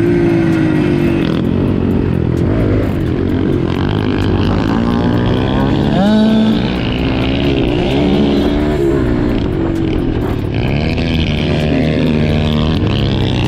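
Dirt bike engine running under way, its pitch rising and falling as the throttle opens and closes, with other dirt bikes running ahead.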